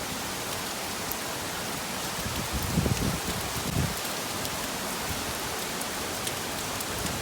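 Steady rain falling, an even hiss with scattered sharp drop clicks. Two brief low rumbling surges come about three and four seconds in.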